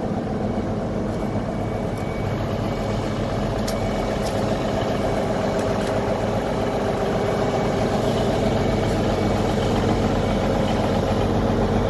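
1981 Versatile 895 tractor's big diesel engine idling steadily, growing a little louder near the end.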